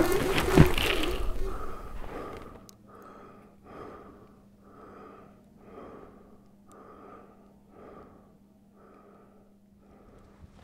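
Music fades out in the first second or two, then a person breathes hard and evenly, about one breath a second, over a faint steady hum.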